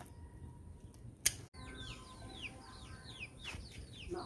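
A single sharp click about a second in, then birds chirping: a quick run of short, falling high notes, several a second.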